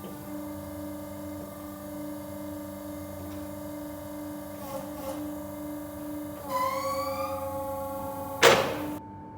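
Sawmill machinery running with a steady hum. About six and a half seconds in, a rising whine starts, and a short, loud rush of noise comes near the end.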